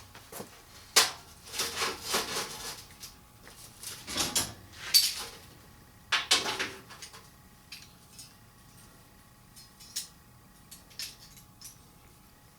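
Metal parts being handled: several sharp clanks and short scraping noises in the first seven seconds, then only a few light ticks.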